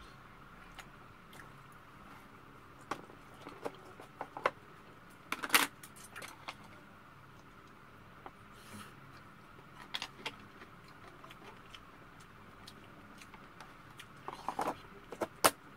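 Scattered light clicks and clacks of chopsticks against a plastic food container and bowls as food is picked up and eaten, the loudest clack about five and a half seconds in and a small cluster near the end, over a faint steady room hum.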